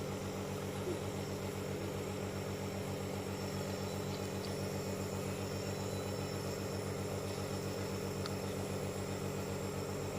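Electric compressor nebulizer running: a steady motor hum with a fast, even pulse.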